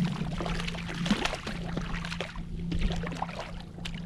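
Small water splashes and clicks against a kayak hull while it drifts, over a steady low hum.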